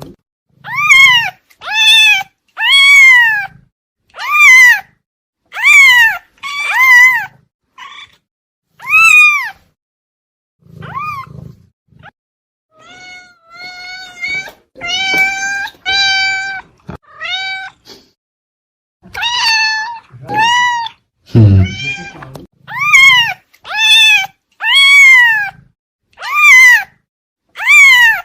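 House cat meowing over and over, about one call a second, most calls rising then falling in pitch. Midway comes a run of flatter, lower meows. A low thump sounds about two-thirds of the way through.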